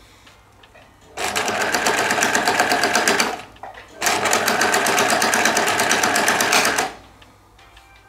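Sewing machine stitching a seam along the edge of a fabric mask in two runs of rapid, even stitches, about two seconds then about three seconds, with a short stop between.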